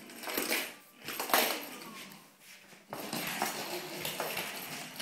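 Plastic ladybug pull-toy rolling and clattering over a hardwood floor as it is dragged on its string, with two sharp knocks in the first second and a half and a steady rattle of its wheels from about three seconds in.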